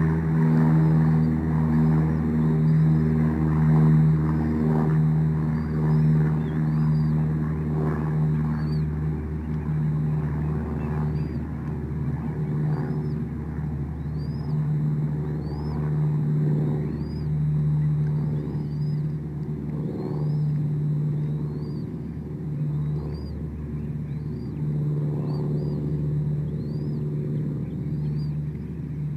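A steady low engine drone that slowly fades, with thin high bird chirps repeating about once a second over it.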